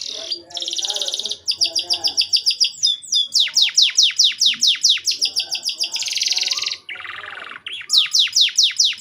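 Domestic canary in full song, one phrase running straight into the next: buzzy trills, rapid repeated notes and runs of sharply falling whistled notes about four to five a second.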